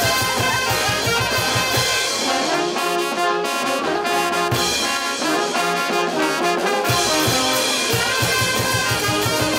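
Brass band music: horns playing held chords over a steady low beat, which drops out for several seconds in the middle and comes back near the end.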